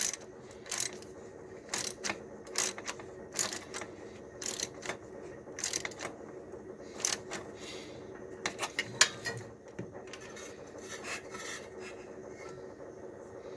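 Hand tools working on metal, with irregular sharp clicks and clinks that thin out about ten seconds in, over a steady low hum.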